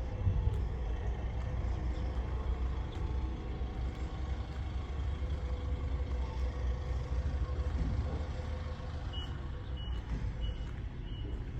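Combine harvester engine running steadily at a low pitch. Near the end a high-pitched warning beeper starts, sounding about one and a half times a second.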